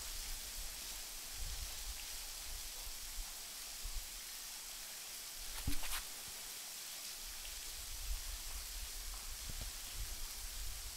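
Steady hiss of falling water splashing onto rocks, over an uneven low rumble, with one brief sharp sound a little after halfway.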